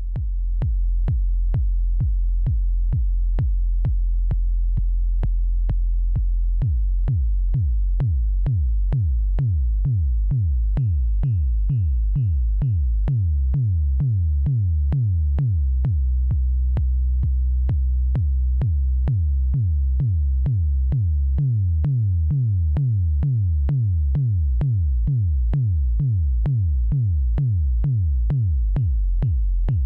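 Eurorack modular synthesizer patch shaped by a Frequency Central CEMvelope ADSR envelope generator: a low bass drone with short, evenly repeated hits about two to three a second. From about seven seconds in, each hit falls in pitch like a synthesized kick drum.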